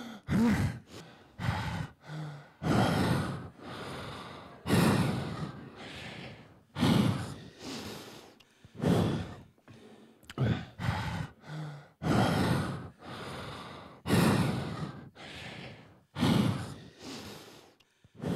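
Heavy amplified breathing: a long series of in- and out-breaths and sighs, about one a second, each swelling and then fading, as part of an experimental electronic sound performance.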